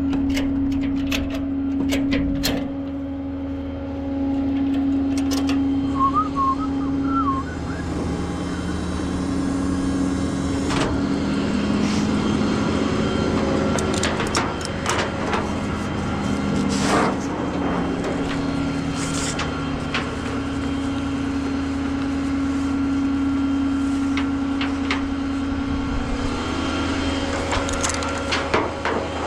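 A tow truck running with a steady drone that shifts in pitch for a while in the middle, with scattered metallic clanks and clicks over it.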